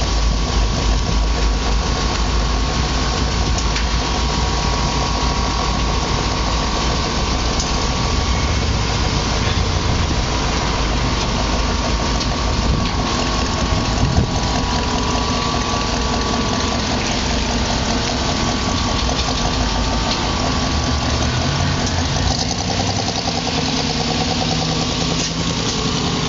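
Engine of an old 1950s pickup truck running steadily at idle, its sound shifting a little in the last few seconds as the truck moves off.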